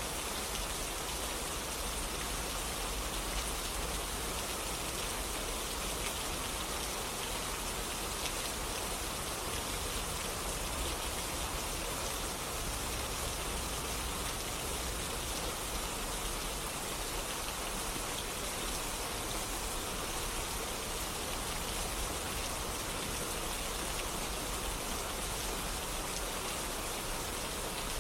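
Steady rain falling, an even hiss with fine spattering drops and no change in strength.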